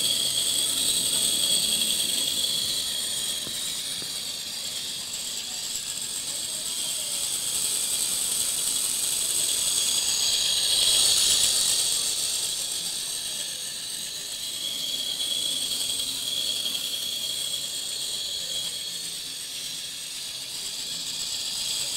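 Small electric drive motor and gearing of a hand-built 1/43 scale Faller-drive model tractor, whining at a steady high pitch as it runs along the track, growing louder about halfway through as it passes close.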